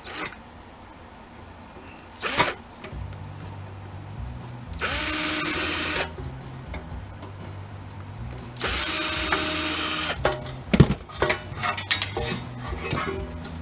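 Cordless drill-driver running in two short bursts of about a second each, backing out flathead screws, followed by several light clicks and clatters of loosened screws and parts.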